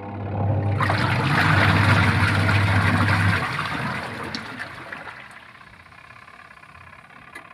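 Washing machine running: its electric motor gives a steady low hum that cuts off about three seconds in, while a rush of water swells for a few seconds and fades away.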